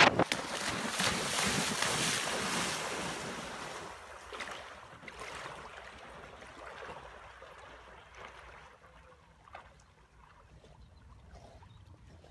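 Wind on the microphone over breaking surf, loud at first and dying away over the first few seconds. It is followed by a faint hiss of calm water.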